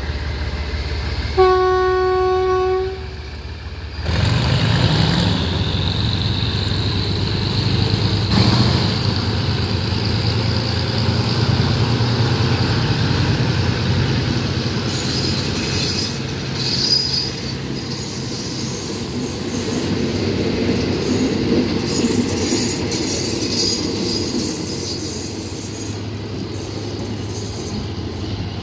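Passenger train hauled by a diesel locomotive pulling out: one short horn blast, then about four seconds in the locomotive's engine throttles up loudly. The engine gives way to the carriages' wheels rolling and clicking over the rails, with brief high wheel squeals, easing off slightly as the train moves away.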